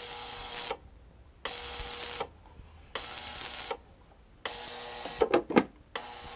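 Hornady Lock-N-Load Sonic Cleaner running its degas program, pulsing its ultrasonic transducers on and off to drive air bubbles out of fresh vinegar-and-water solution: a hissing buzz about three-quarters of a second long, repeating every second and a half with quiet gaps between. Just after five seconds in, a few knocks as the lid is set on the tank.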